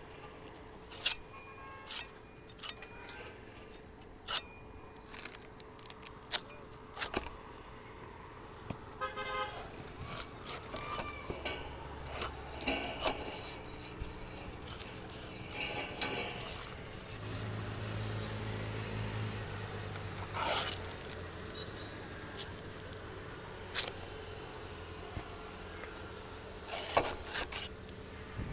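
Knife cutting and prying at the fibrous bases of palm frond stalks, giving sharp, irregular clicks and knocks every second or two. Faint vehicle engine sounds come from the background, with a brief horn-like tone partway through.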